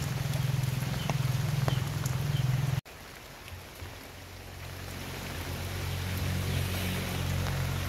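Steady rain falling on garden foliage, with scattered single drops and a low rumble underneath. The sound cuts off abruptly about three seconds in and returns quieter, slowly swelling toward the end.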